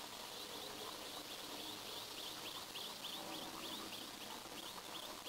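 Outdoor ambience over a steady hiss, with an unseen animal's call: short, high, falling chirps repeated about three times a second.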